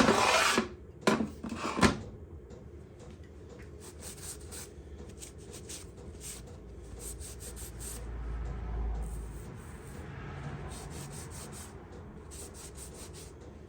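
Metal parts of a cross vise being knocked and slid apart during dismantling. A few sharp metal knocks come in the first two seconds, then metal rubs and scrapes on metal with scattered light clicks and a low rumble about two-thirds of the way through.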